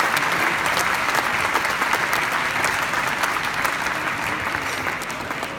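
Arena crowd applauding, a dense patter of many hands clapping that slowly dies away toward the end.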